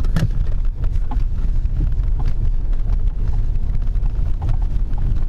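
Small truck climbing a steep hillside track, heard from inside the cab: a steady low engine and ground rumble with scattered knocks and rattles from the rough ride.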